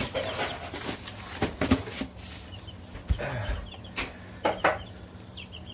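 Chickens clucking and giving short high chirps, with scattered knocks, rustles and a wing flap or two.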